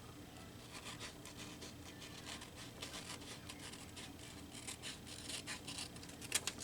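Scissors cutting a magazine page, a quiet run of irregular snips with paper rustling, with two sharper clicks near the end.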